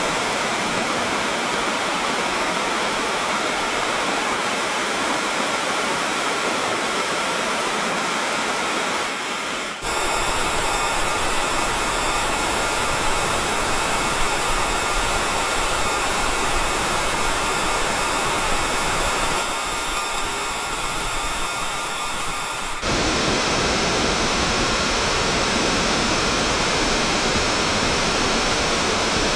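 Waterfall: a steady rush of falling water. It changes abruptly about ten seconds in and again a little past twenty seconds, as one recording cuts to another; the last stretch is deeper and fuller.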